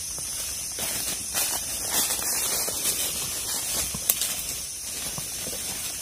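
Footsteps crunching on dry leaf litter, a few scattered steps, over a steady high-pitched hiss of jungle ambience.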